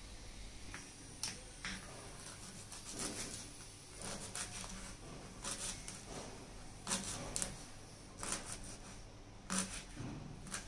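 Kitchen knife chopping fresh cluster bean pods on a wooden cutting board: crisp snaps of the blade cutting through the pods and tapping the board, in short irregular runs.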